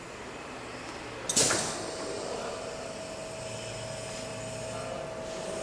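Glass drilling machine running, its spindle motor giving a steady whine with a low hum underneath. A short, sharp burst of noise about a second in is the loudest sound.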